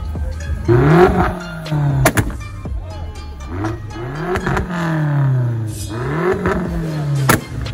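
A car engine revved three times, each rev rising quickly in pitch and falling back more slowly, with a sharp crack near the end.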